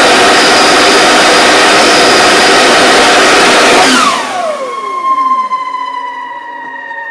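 Air blasted from a hose into a small gas turbine engine's intake, spinning its compressor wheel: a loud, steady rush that stops about four seconds in. The freed rotor then coasts down with several whining tones slowly falling in pitch.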